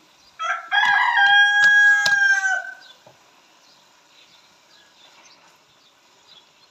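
A rooster crowing once: a few short rising notes run into one long held note that drops away at the end, lasting about two and a half seconds.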